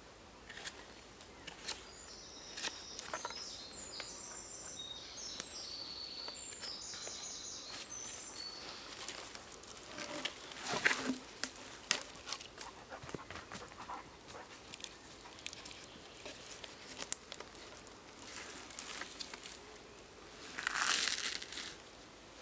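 Knife whittling wood in scattered scraping clicks, with dry leaves rustling as the carver shifts on the forest floor, loudest about ten seconds in and near the end. A small bird sings a run of high notes for several seconds, starting a couple of seconds in.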